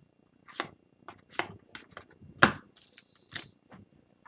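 Hockey trading cards being slid and flipped through by hand one at a time: a string of short papery swishes and taps, the loudest about halfway in.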